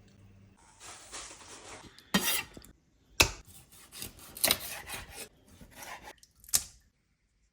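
Kitchen food-prep sounds: a scraping, rubbing hiss, then several sharp clatters and knocks of utensils against dishes, with the last knock a little before the end.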